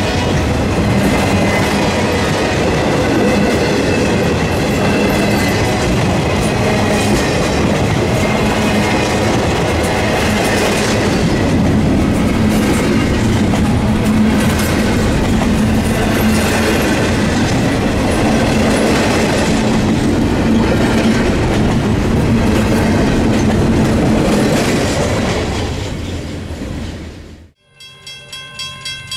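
Freight train cars passing at speed: a loud, steady rumble and clatter of wheels on the rails that fades about 25 seconds in. After a sudden cut, a regular pulsing ringing begins.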